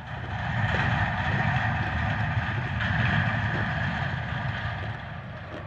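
Road vehicle passing, its engine and tyre noise swelling over the first second, holding, then fading away over the last couple of seconds.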